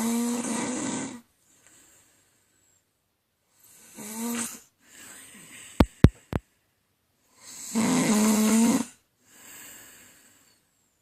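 A woman snoring: three loud snores about four seconds apart, the first already under way at the start, with quieter breaths between them. Three sharp clicks come in quick succession about halfway through.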